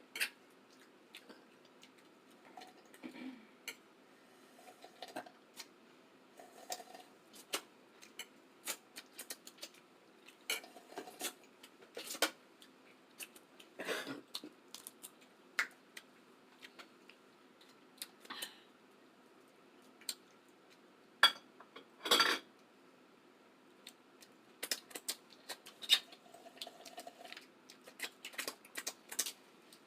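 Eating a seafood boil: scattered clicks, taps and clatter of hands, shells and dishes, with a few louder knocks about halfway and about two-thirds through.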